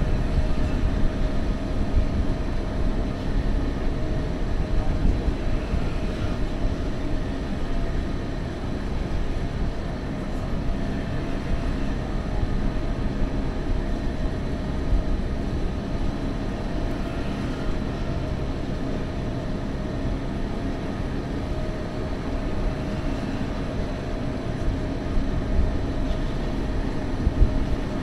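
Electric mountain train running downhill, a steady rumble of wheels on rail with a faint steady whine, heard from outside the carriage with wind on the microphone.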